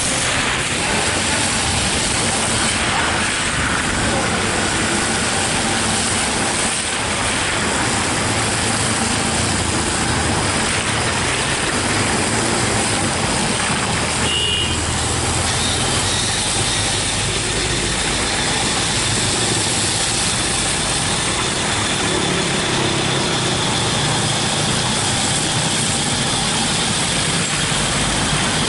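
Steady road traffic passing close by: vans, cars and trucks driving past, their engines and tyres on a wet road making a continuous rushing noise. A brief high beep sounds about halfway through.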